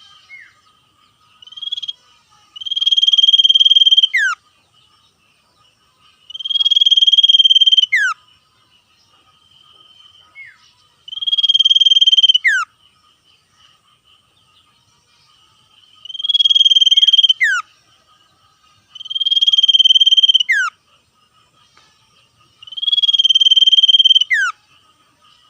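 Common iora (sirtu) giving long buzzy trills, six of them, each about a second and a half and ending in a quick falling whistle, over a faint steady high tone.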